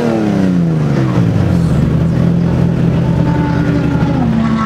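Nissan Skyline R34 GT-R's RB26DETT twin-turbo straight-six, running through an aftermarket exhaust. The revs fall back after a blip of the throttle and settle into a steady idle by about a second and a half in.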